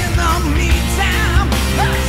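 Background rock music with a steady bass line and gliding sung or played lines above it.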